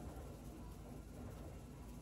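Quiet room tone with a faint steady low hum; no distinct event stands out.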